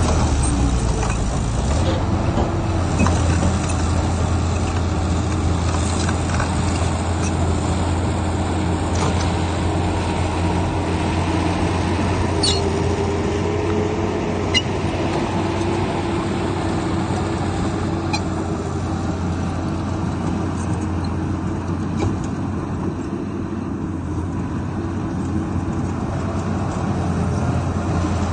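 Komatsu bulldozer's diesel engine running steadily under load, with a few brief sharp metallic sounds around the middle.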